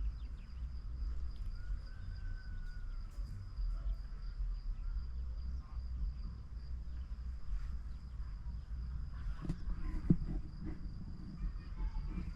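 Steady high-pitched insect chirring, one unbroken tone, over a low rumble of wind on the microphone.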